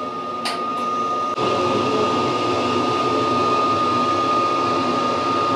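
Train toilet flushing, set off by waving a hand at its sensor: a short click, then a rushing whoosh that starts suddenly about a second and a half in and keeps going steadily.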